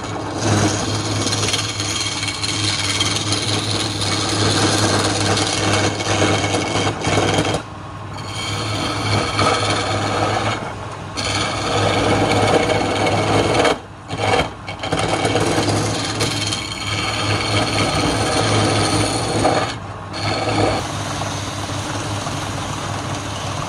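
Chisel cutting a wooden spindle turning on a wood lathe: a continuous rough scraping of steel on spinning wood over the steady hum of the lathe's motor. The cutting stops for a moment about four times as the tool comes off the wood.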